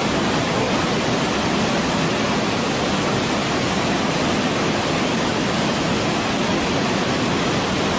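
Waterfall rushing as a steady, even roar of falling water.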